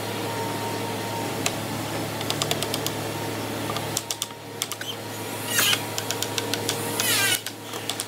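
Light knocks and quick taps of wooden door parts being fitted together and tapped with a hammer, over a steady workshop hum. Two louder scraping squeaks come about five and a half and seven seconds in, as wood rubs on wood.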